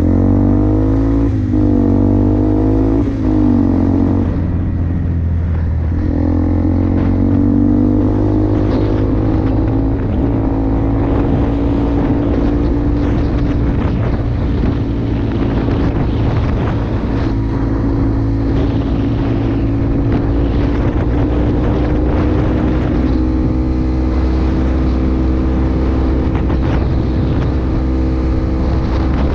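Single-cylinder four-stroke engine of a 2004 Yamaha Bear Tracker ATV with an FMF aftermarket exhaust, on the move. Its revs dip and rise sharply a few times in the first few seconds, then it runs steadily with the pitch slowly climbing.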